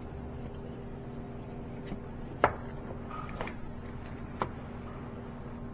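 Hand tools working on a car's starter motor: three sharp clicks or knocks, the loudest about two and a half seconds in, over a steady low hum.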